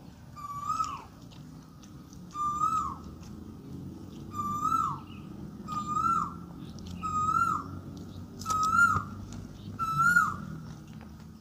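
A bird calling over and over nearby: seven short calls, each rising slightly and then dropping sharply, repeated about every second and a half.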